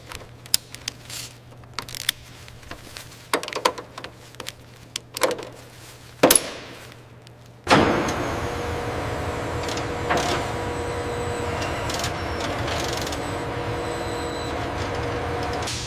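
Scattered knocks and clicks of metal parts being handled. About eight seconds in, a steady mechanical hum with a hiss starts suddenly and runs on.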